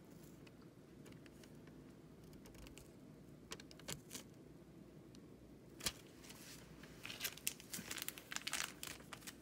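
Thin plastic nail-art foil sheets being handled and crinkling: a few light rustles in the middle, a single tap about six seconds in, then a close run of crinkling over the last two seconds.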